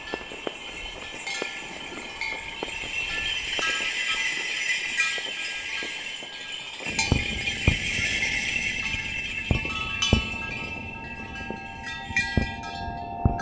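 Fireworks bursting: a steady run of bangs over a dense high crackle. After about seven seconds the bangs grow sharper and deeper, and a few steady ringing tones sound near the end.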